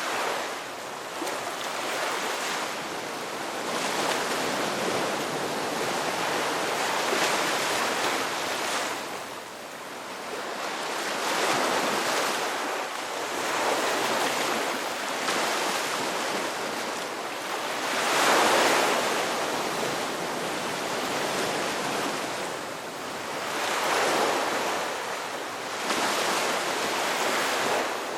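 Ocean waves breaking and washing on the shore, the surf swelling and ebbing every few seconds, with the biggest wave about eighteen seconds in. A little wind noise on the microphone.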